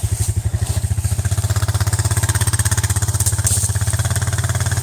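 Small single-engine vehicle, likely an ATV, idling steadily with a fast, even exhaust pulse.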